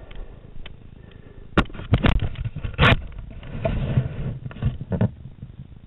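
Handling noise on a head-mounted camera just after a parachute landing: several sharp knocks and scrapes close to the microphone, with a stretch of rustling near the middle.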